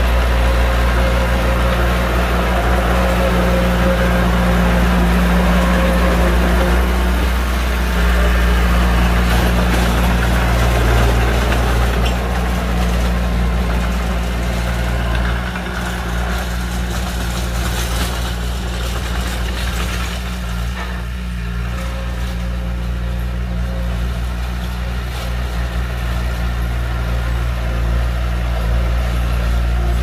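Heavy earthmoving machine's diesel engine running steadily with a low drone, easing off a little for a while past the middle.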